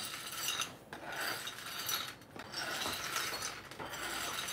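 Two metal spatula blades stirring and scooping a heap of small 3D-printed plastic pieces on a 3D printer build plate. The plastic bits rattle and clatter and the blades scrape on the plate, in a few bursts with short pauses between.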